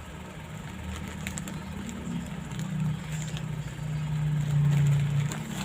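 A low motor hum that builds to its loudest about four to five seconds in and then eases off, with faint scattered clicks over it.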